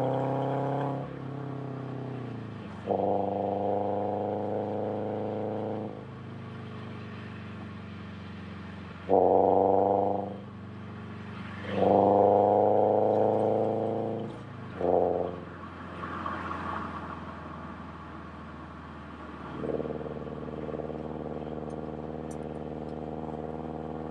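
Subaru BRZ's flat-four boxer engine with unequal-length headers giving it a rumble. It winds down at first, then pulls loudly in four throttle bursts with quieter coasting between them, and settles into a steady, quieter drone near the end.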